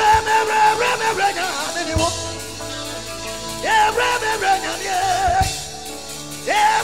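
Live gospel worship music from a band with keyboard, electric guitar, bass guitar and drums. A voice sings three long phrases, starting at the outset, about four seconds in and near the end.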